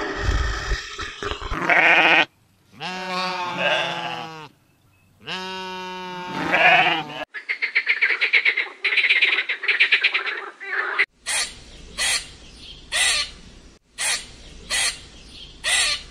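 A run of animal calls, one after another: two long wavering bleats, then a rapid pulsed chattering call lasting about four seconds, then six short sharp calls about a second apart.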